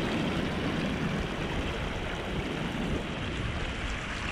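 Shallow seawater washing and trickling over an exposed coral reef flat, with wind rumbling on the microphone. A steady, even rush with no distinct events.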